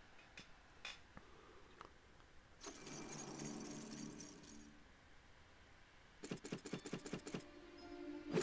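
Faint sound effects from the Megaways Jack online slot: a jingling whir of the reels spinning about three seconds in, then a quick run of clicks as the reels land, between six and seven and a half seconds in.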